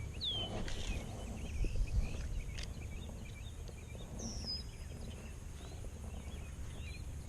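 Scattered short bird chirps and whistles over a low, steady rumble.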